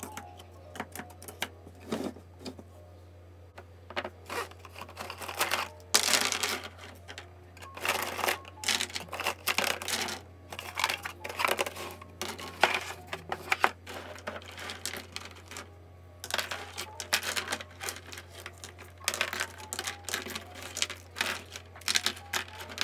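Plastic highlighter markers clicking and clattering as they are handled, set down on a desk and slotted into clear acrylic organizers, in clusters of rapid knocks with short pauses between. A steady low hum runs underneath.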